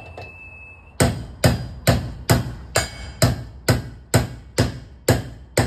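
Hammer driving nails into timber formwork: a steady run of sharp blows, about two a second, starting about a second in.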